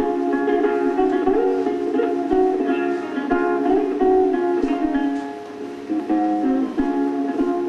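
Background film-score music: plucked strings playing a melody of short, quick notes, with little bass.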